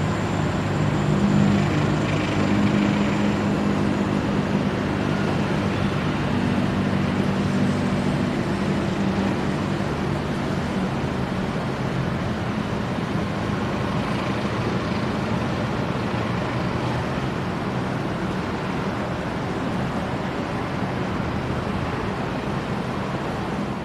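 Freight train of oil tank wagons rolling past as a steady, unbroken rumble. A low engine drone sounds in the first several seconds, then fades.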